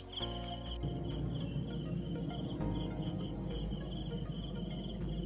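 Crickets chirping in a steady pulsing rhythm, over a low rumble.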